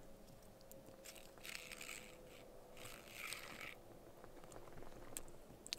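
Faint rustling and scraping from hands working the line of an ice-fishing tip-up, with two longer soft scrapes about a second and a half and three seconds in, and a few small ticks.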